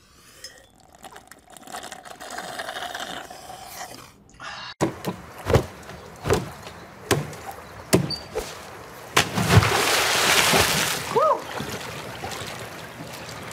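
A springboard diving board thumping as someone bounces on it four or five times, followed about nine seconds in by a loud splash into a swimming pool and water sloshing. Before the cut there is a few seconds of steady hiss, and a short rising squeak comes just after the splash.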